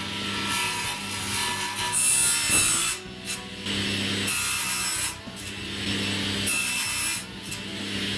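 Table saw running and cutting through a board: a loud, hissy cutting noise over the motor's steady hum, in several stretches broken by short dips.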